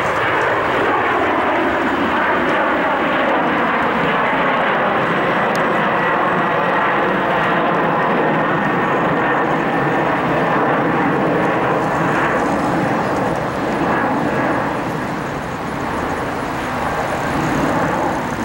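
Boeing 737-800's CFM56-7B turbofan engines at takeoff climb power: a loud, steady jet roar, with a tone in it that slides slowly down in pitch over the first several seconds as the jet climbs away, and fading a little near the end.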